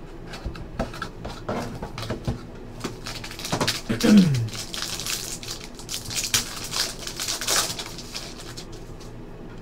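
Trading-card box handled and its foil wrapper pack crinkled and torn open by hand: cardboard scuffs and taps, then a run of crackling foil rustles. A short tone falls in pitch about four seconds in.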